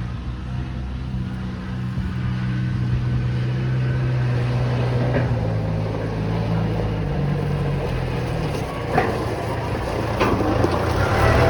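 Multiloader L20 compact wheel loader's engine running steadily, its engine speed shifting a few times, with two short knocks near the end.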